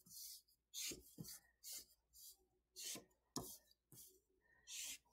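Felt-tip marker drawing straight lines on paper: a run of short, faint scratchy strokes, roughly two a second.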